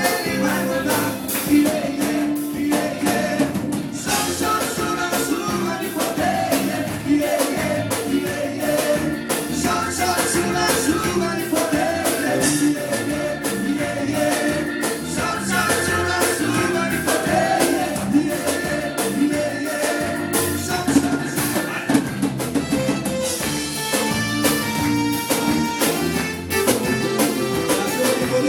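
A gospel band playing a song, with drums and hand percussion keeping a steady beat under the melody.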